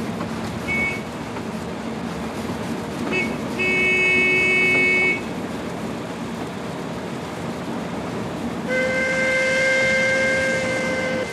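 A truck's horn blows two short toots and then a longer blast, a warning to the train crew, over the steady running noise of the truck and a passing steam train. Near the end a DB class 64 steam locomotive's whistle blows one long steady note that cuts off sharply.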